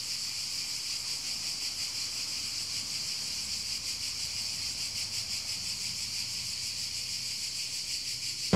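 Steady, high-pitched chorus of insects chirring, like crickets at night.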